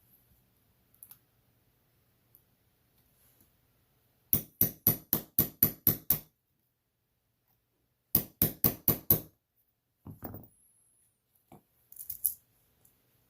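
Small hammer tapping a pin punch to drive a roll pin out of a stainless steel watch bracelet link: two quick runs of sharp taps, about eight and then six, about five a second, followed by a few softer clicks.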